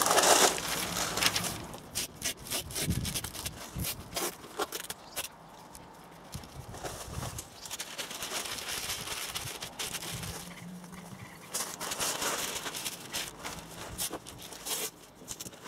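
Sheets of newspaper rustling and crinkling while masking tape is pulled off the roll and pressed down over a car door, loudest in the first second or so.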